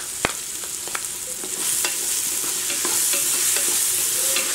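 Onions, tomatoes and spices frying in oil in an open aluminium pressure cooker, sizzling steadily while asafoetida powder is sprinkled in. There is a sharp tap just after the start. The sizzle grows louder from about a second and a half in as the masala is stirred with a spoon, with light clicks of the spoon against the pan.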